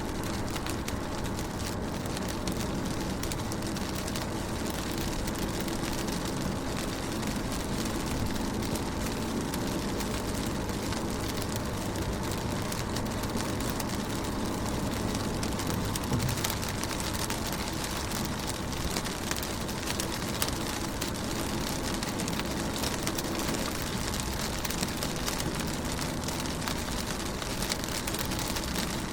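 Steady rain on a car window: a continuous hiss of many small drop hits over a low rumble.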